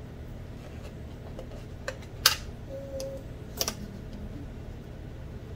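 Rugged plastic tablet case being handled: a few sharp plastic clicks and knocks, the loudest a little over two seconds in and a quick pair soon after, over a steady low hum.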